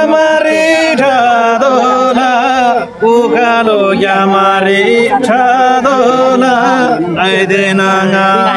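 A man singing a line of a Tamang selo juhari in long, wavering held notes, with a short break for breath about three seconds in.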